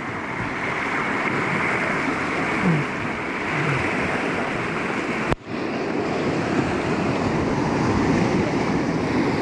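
Fast whitewater of a river at high flow rushing steadily around a raft, with wind on the microphone. The sound breaks off for an instant a little past five seconds in, then carries on.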